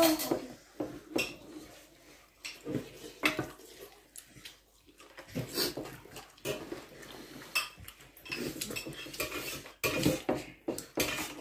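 Spoons clinking and scraping against stainless steel plates and bowls during a meal, in irregular short clicks scattered throughout.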